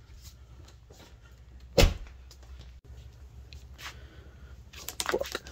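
A single sharp, heavy thump about two seconds in, followed by faint clicks and handling rustle.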